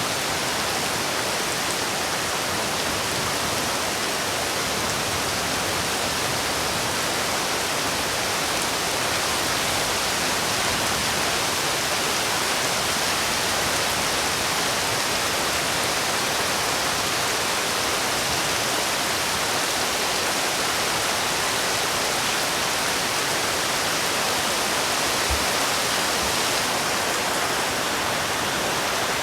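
Heavy rain falling steadily, a dense, even hiss that does not change in level.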